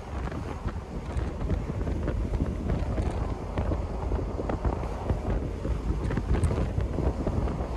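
Wind buffeting the microphone in the cabin of a moving 1988 Mercedes-Benz 560SL, over the car's road and driving noise. The rush gets a little louder after the first second.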